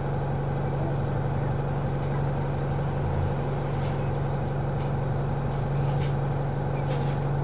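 Alexander Dennis Enviro 200 bus's diesel engine running steadily, a constant low drone that holds one pitch without revving.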